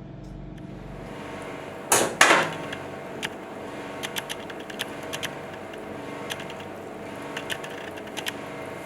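Hands working inside a chicken carcass during gutting: two short, louder rustling bursts about two seconds in, then scattered small clicks and ticks, over a steady background hum.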